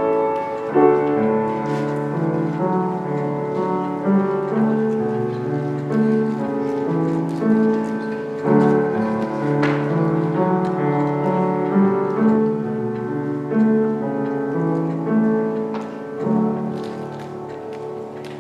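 Slow piano music with held chords changing one to the next, fading out near the end.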